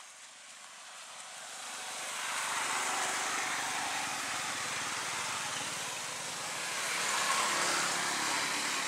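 A steady rushing noise like a passing vehicle swells up over the first two seconds and then holds.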